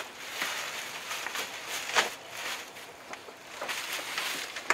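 Rustling and crinkling of plastic wrap and cardboard packaging being handled, with sharp crackles about two seconds in and near the end.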